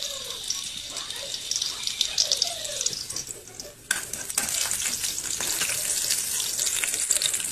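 Food frying in hot oil in a pan: a steady sizzle full of fine crackles. It dips about three seconds in and comes back louder a second later.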